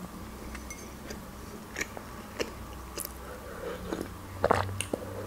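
Close-up chewing of a pâté sandwich on dark bread, with soft wet mouth clicks scattered throughout. Drinking from a mug, with a few louder gulps about four and a half seconds in.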